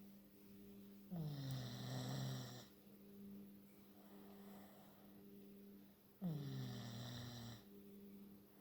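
A pet snoring like a person: two drawn-out snores about five seconds apart. Each one starts with a falling pitch and carries a wheezy hiss.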